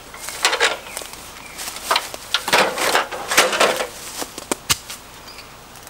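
Rustling footsteps through dry leaves and brush, and the handling of a one-handed bar clamp, ending in a few sharp clicks about four and a half seconds in.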